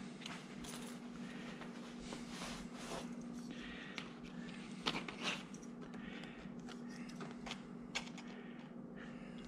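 Vertical-blind slats rustling and scraping as they are handled, with a few light clicks about five seconds in and again near the end as a hand hole punch is lined up on a slat.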